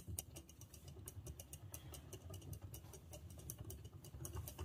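Regalia Genesis Beyblade spinning on its sharp tip across a plastic stadium floor, with faint, rapid, irregular ticking. The tip stays out: the top's Reboot driver is not switching modes.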